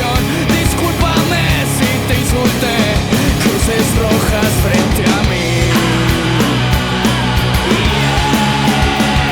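Loud punk rock song by a full band, with driving drums hitting at a steady beat.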